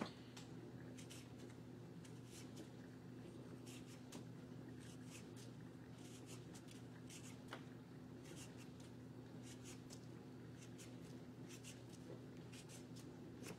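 Vegetable peeler scraping skin off a raw potato in short, faint strokes, one or two a second, over a steady low hum.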